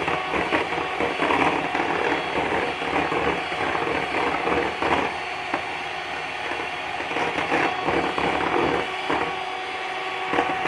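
Electric mixer running continuously, its beaters whisking an egg-yolk, sugar, milk and oil batter in a bowl, with a steady motor hum under a rattling clatter.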